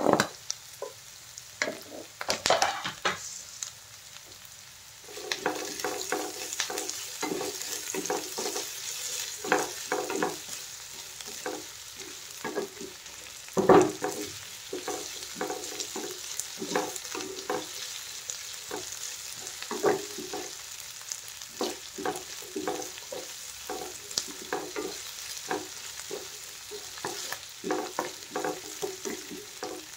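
Onions and diced potatoes sizzling in oil in a granite-coated frying pan, stirred with a wooden spatula that scrapes and knocks against the pan again and again. A few knocks at the start as the potatoes go in, the sizzling growing louder about five seconds in, and one louder knock about 14 seconds in.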